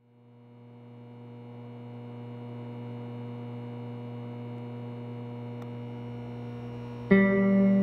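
A steady low hum with a stack of even overtones, fading in over the first few seconds. Near the end a louder sustained note comes in sharply as the music begins.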